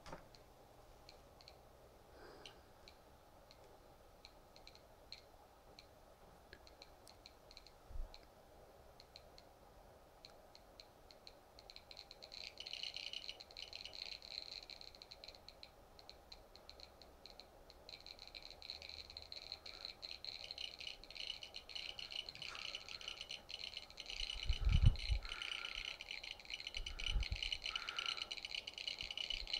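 High electronic ticking, about two ticks a second, that thickens into a dense, high-pitched rattle about twelve seconds in. A few dull knocks near the end.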